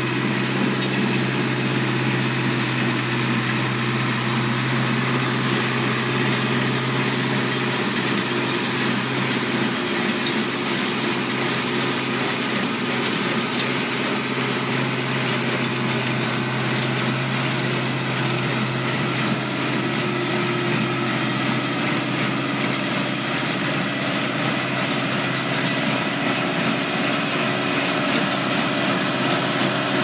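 Farm tractor engine running steadily while pulling a New Holland 315 small square baler at work; its low engine note weakens about ten seconds in.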